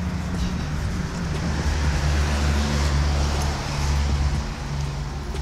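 A car engine running steadily with a low hum, with a steady rush of road or air noise over it.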